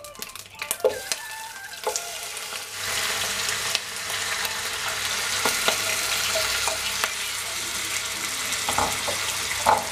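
Marinated chicken pieces tipped with a wooden spatula from a glass bowl into hot coconut oil in a nonstick pan. A few knocks of spatula and bowl come first, then a steady sizzle takes over about three seconds in as the chicken fries.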